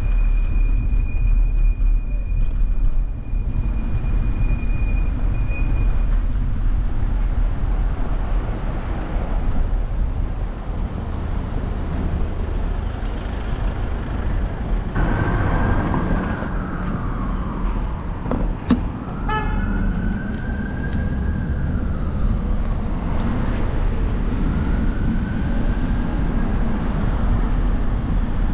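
City street traffic heard from a moving bicycle, over a constant low wind rumble on the microphone. A steady high tone sounds for the first few seconds, and in the second half a tone rises and falls several times.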